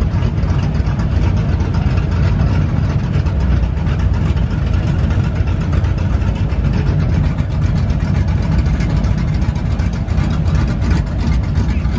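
Car engines idling with a steady low rumble.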